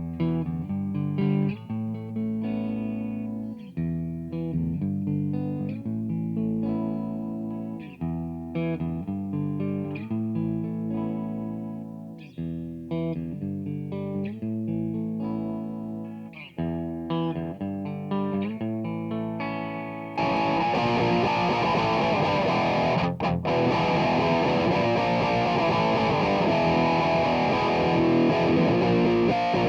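Stagg Stratocaster-style electric guitar played for a sound test: clean picked notes and chords that ring out and decay. About two-thirds of the way through it switches to a heavily distorted, sustained sound, cut off for a moment once a few seconds later.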